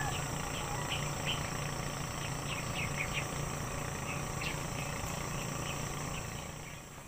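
Outdoor pond-side ambience: a steady insect drone with short faint bird chirps scattered through, over a low steady hum.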